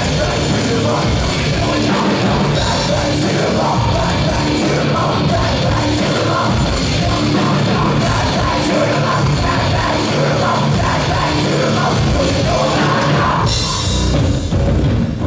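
Live heavy rock band playing loudly, with a drum kit driving the beat under electric guitar and a singer's voice.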